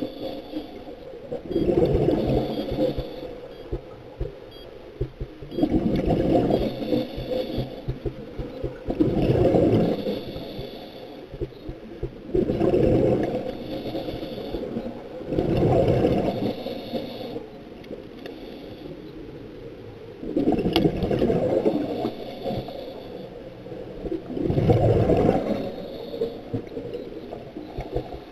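A scuba diver breathing through a regulator underwater: a rumbling, gurgling burst of exhaled bubbles every three to four seconds, with quieter breathing sounds between.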